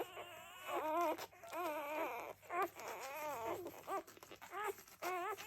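Newborn Labrador puppies crying: a string of short, wavering squeals and whines, one after another.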